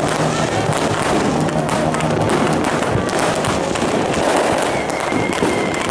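Aerial fireworks going off in a dense, continuous barrage of bangs and crackling. A short, steady high tone comes in near the end.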